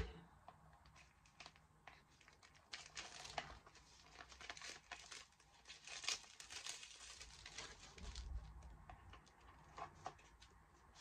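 Product packaging being opened by hand: faint, irregular crinkling and rustling, thickest from about three seconds in to about seven, then thinning out.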